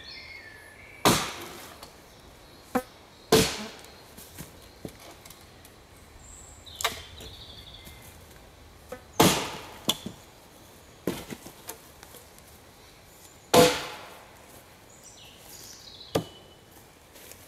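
Gränsfors Bruks felling axe chopping into a log: four heavy strikes a few seconds apart, with lighter knocks of the blade between them.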